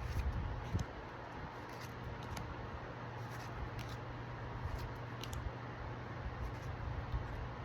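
Trading cards being handled and slid one over another, giving a few faint soft clicks and rustles over a steady low hum.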